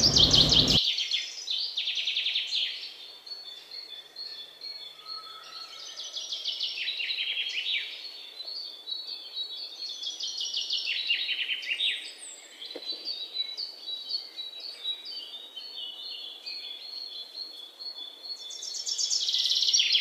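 A flock of birds calling together: a steady chatter of high chirps, broken every few seconds by louder rapid runs of notes that fall in pitch.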